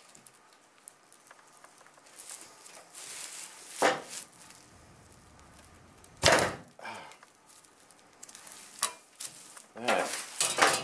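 A VW bus Safari window being taken apart by hand: the metal frame and glass pane knock and scrape against each other and the bench as the glass is worked out of the frame. Two sharp knocks stand out, about four and six seconds in.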